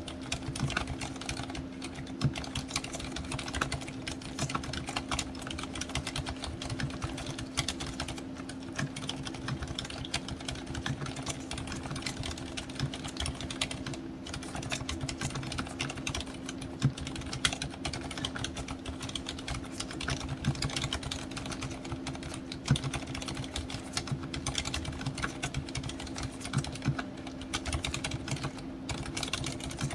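Continuous fast typing on a Hansung TFG ART Wireless mechanical keyboard fitted with silent red switches, with a few harder strokes standing out. The strokes are muffled by the keyboard's full rubber dampening, with no rattle from switches or stabilizers and no hollow case ring. A steady low hum runs underneath.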